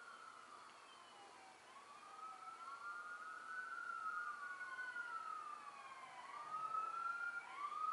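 Emergency vehicle sirens wailing, more than one at once, their slow rising and falling wails overlapping; faint at first and getting louder near the end.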